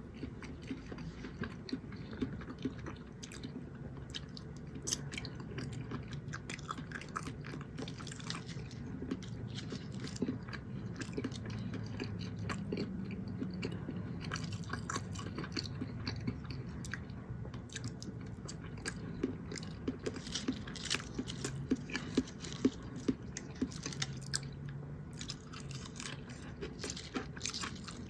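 A man chewing and eating food close to the microphone, with many small wet clicks and mouth smacks.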